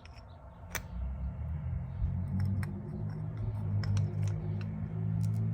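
Light metal clicks from automatic locking hub parts being handled and slid into place, a sharp one about a second in, over a low hum that grows louder.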